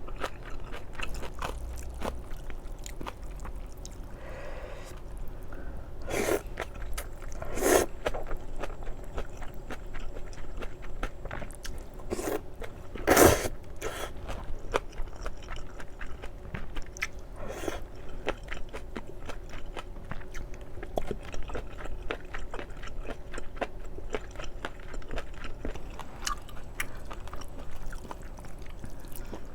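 Close-up chewing and biting of spicy stir-fried octopus and thin wheat noodles: a steady run of wet mouth clicks. A few louder sudden sounds stand out, the loudest about 13 seconds in.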